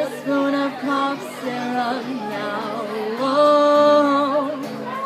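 A voice singing a song: a few short notes, then a long held note starting about three seconds in that wavers at its end.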